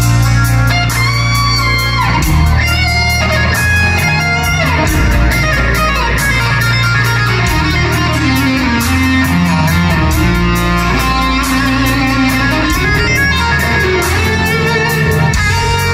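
Electric guitar playing a slow, singing lead melody over bass guitar and a steady drum beat, in a live rock instrumental ballad. The lead notes slide down in pitch a few times.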